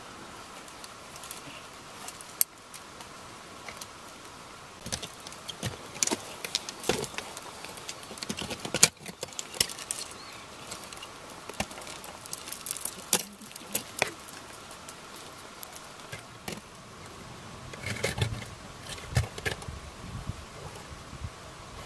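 Metal climbing gear clinking and crampon points scraping on granite as a climber moves up the rock: irregular clicks and short scrapes, a few sharper and louder than the rest.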